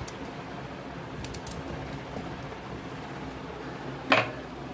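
Hands handling a steel mixer-grinder jar as onion pieces go in, with faint small clicks over a steady low background hum and one short, sharp clatter about four seconds in.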